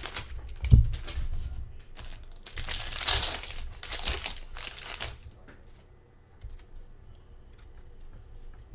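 Plastic trading-card pack wrappers and card sleeves crinkling as packs are opened and cards handled, with one dull thump just under a second in. After about five seconds it quietens to small scattered clicks.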